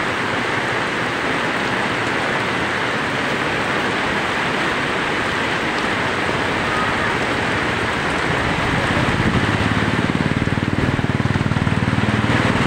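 Heavy rain pouring down in a steady hiss, growing louder and fuller about nine seconds in.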